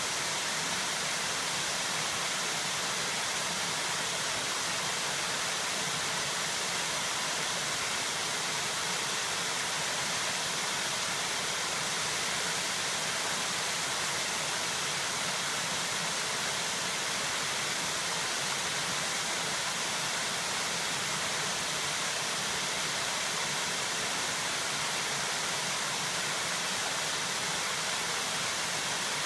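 A low, wide waterfall pouring over stepped rock ledges into a pool: a steady, unbroken rush of falling water, bright and hissy with little low rumble.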